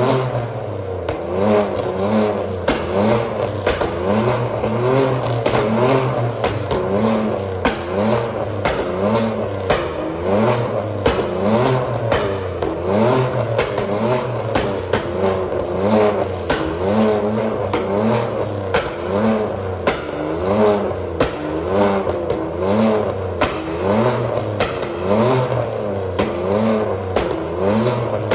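Straight-piped, catless 2015 Ford Taurus Limited exhaust, revved in repeated short blips about once a second. Sharp pops and crackles run through it, from its pops-and-bangs tune.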